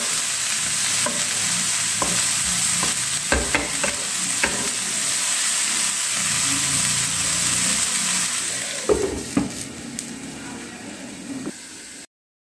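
Chopped common purslane leaves sizzling in oil in a non-stick frying pan while a spatula stirs them, scraping and tapping the pan now and then. A couple of louder knocks come about nine seconds in, after which the sizzle grows fainter, and the sound stops suddenly near the end.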